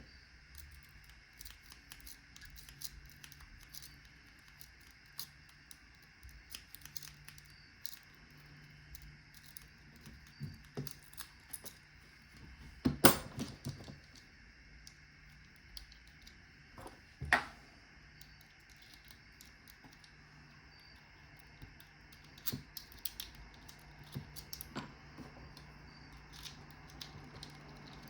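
Lock picks and a tension wrench working a cheap Harbor Freight padlock: scattered small metallic clicks and scrapes, with a couple of louder sharp clacks midway.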